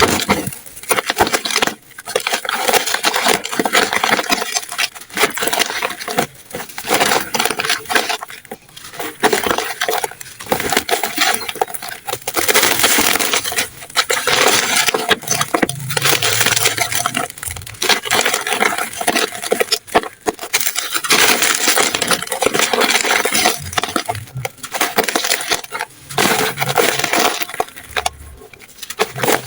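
Dry, crumbly 'dusty' pieces being crushed and crumbled, a crisp crunching and crackling that comes in bursts with short pauses between.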